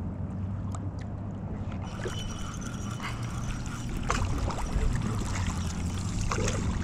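Water lapping and splashing against a kayak hull, with wind rumbling on the microphone and a few scattered clicks and knocks.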